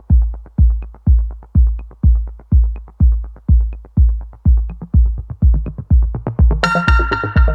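Electronic background music: a drum-machine beat with a heavy kick about twice a second and light ticks between, with synthesizer chords joining in near the end.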